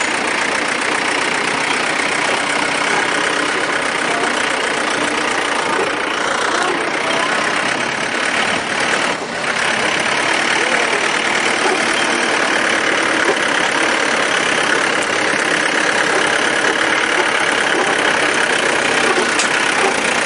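John Deere compact tractor's engine running steadily as the tractor drives along a dirt track.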